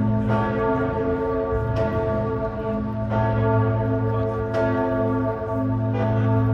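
Old church bell tolling, struck five times at an even pace of about one stroke every second and a half, each stroke ringing on into the next over a steady low hum.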